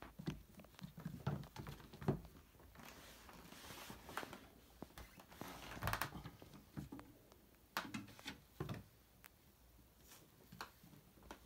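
Two kittens' paws pattering and scrabbling on a quilt and a bare wooden floor, with scattered light thumps as they tumble and a stretch of fabric rustling in the middle.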